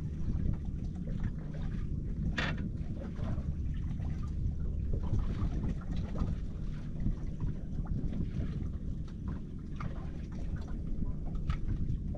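Wind rumbling on the microphone over water lapping at a small boat's hull, with a few sharp clicks, the loudest about two and a half seconds in.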